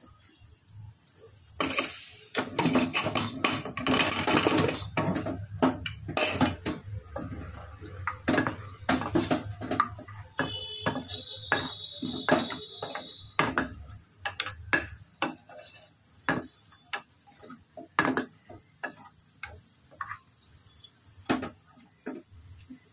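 A metal ladle clinks and scrapes against the aluminium pressure-cooker pot as thick mutton curry is stirred. It begins with a few seconds of dense clattering, then goes on as separate knocks and scrapes.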